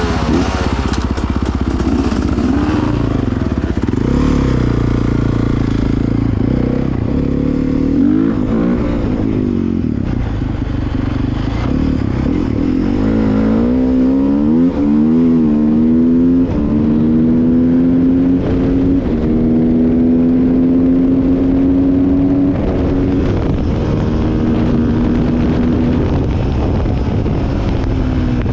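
Dirt bike engine under way, its pitch rising and falling as the rider works the throttle and changes gear, then holding a steady, slowly rising pitch for about ten seconds in the second half.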